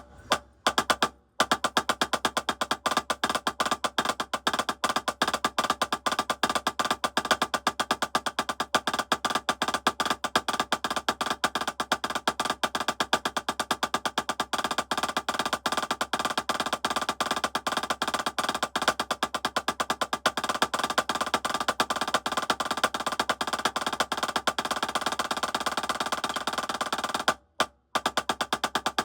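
Drumsticks playing a triplet drag-and-roll rudiment exercise: a rapid, even stream of strokes with drags and rolls, broken by brief pauses about a second in and near the end.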